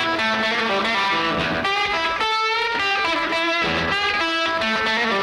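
Rock music soundtrack: an electric guitar plays a melodic line of separate notes at a steady level, with no singing in this stretch.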